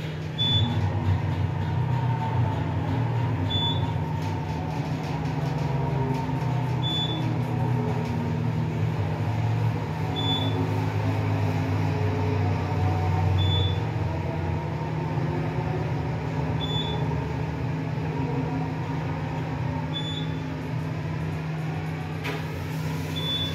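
Otis Gen3 elevator car travelling down, with a steady low machine hum through the ride. A short high beep sounds about every three seconds.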